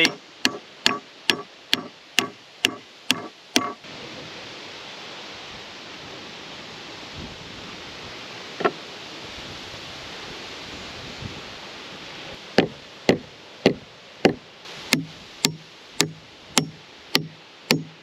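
Hammer driving nails into poplar lumber: a quick, steady run of about nine blows, a pause of several seconds with a single knock, then another run of about a dozen blows near the end.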